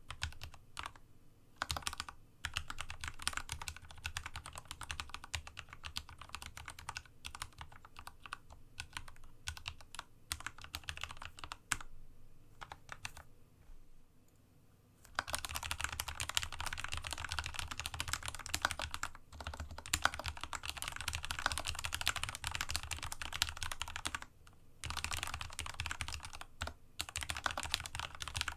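Steady typing on a Dygma Raise split mechanical keyboard with linear Cherry MX Red switches lubed with a Krytox 105 and 205g0 mix, on a desk mat. The key strokes thin out to a brief pause about halfway through, then come back denser and louder.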